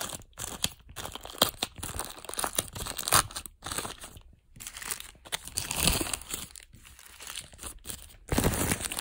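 Soft polyethylene plastic bag being handled and pulled open by hand: an irregular run of crinkles and crackles, louder near the end.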